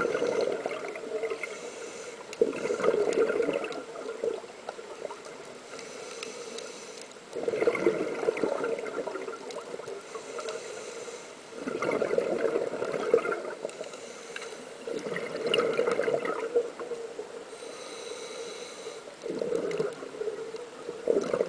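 A scuba diver breathing through a regulator, recorded underwater: a burst of exhaled bubbles about every four seconds, each lasting a second or two, with quieter spells in between.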